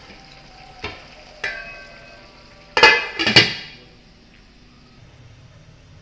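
Steel pot lid clattering against a cooking pot: two light metallic taps about a second in, then a louder ringing clatter around three seconds in. A faint sizzle of the simmering chicken and potato curry runs underneath.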